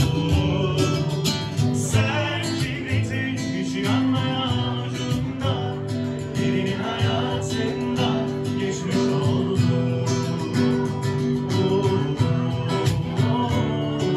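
Acoustic guitar being strummed, with a voice singing along.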